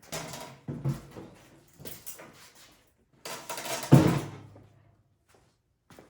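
Metal clunks and rattles from hand tools and snowblower parts being handled, with a few light knocks and then a louder clatter about four seconds in.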